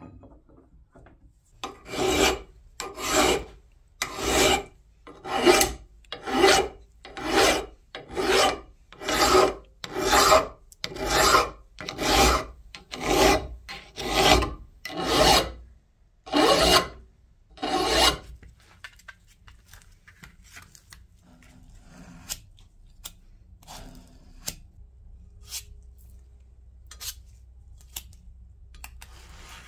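Round file rasping along the edge of a cast metal housing in about sixteen steady strokes, roughly one a second, stopping about 18 seconds in. After that come faint, irregular scrapes of a blade spreading filler over the casting.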